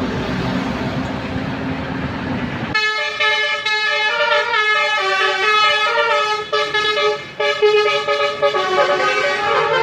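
A tour bus's engine and road noise, then, about three seconds in, an Indonesian telolet multi-tone air horn starts playing a melody of notes that step up and down and keeps playing.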